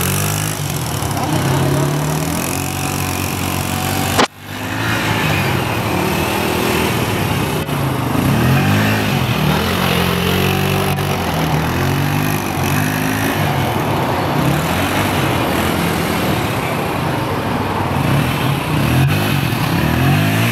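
Small engine of a child's quad ATV running and revving up and down as it is ridden. The sound breaks off sharply for a moment about four seconds in.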